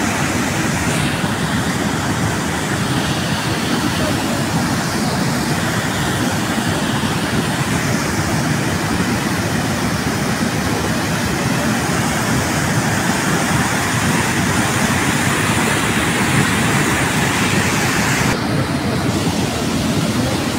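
Muddy flash-flood torrent rushing along a stream bed: a loud, steady rush of water that never lets up.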